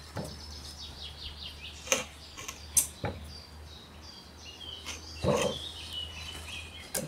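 Small birds chirping repeatedly, with a few sharp wooden knocks and bumps as a large dry driftwood root is handled and steadied on a bathroom scale.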